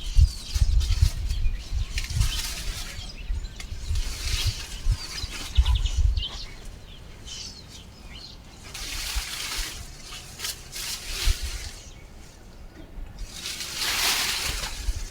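Leaves and vines rustling and swishing as old pumpkin plants are pulled up and handled, in uneven bursts, with low buffeting on the microphone in the first few seconds. A bird gives a short rapid trill about five seconds in.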